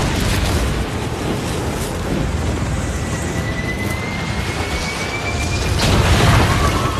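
Film sound effects of fireball explosions and raging fire: a dense, continuous low rumble, with a faint rising whistle from about three seconds in and a sudden loud blast about six seconds in.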